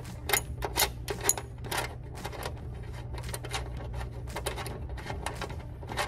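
Light metallic clicking from the hand tools of a rivet nut setting tool as its screw is backed out of a freshly set rivet nut. The clicks come about two a second at first and thin out after a couple of seconds, over a steady low hum.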